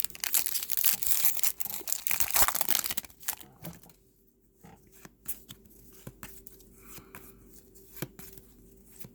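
A trading card pack wrapper being torn open and crinkled for about three seconds, then quieter light clicks and rustles of cards being handled.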